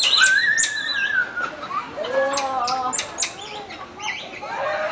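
Squirrel monkeys calling: high peeps and chirping twitters, with a drawn-out peep lasting about a second near the start, and sharp clicks in between.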